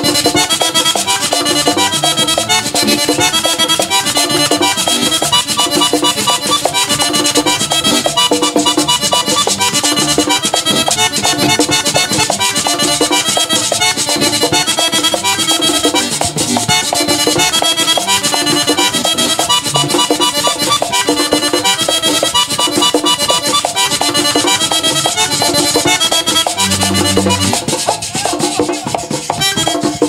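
Live merengue típico band playing an instrumental passage: accordion leading over tambora drum and electric bass, with a steady dance rhythm.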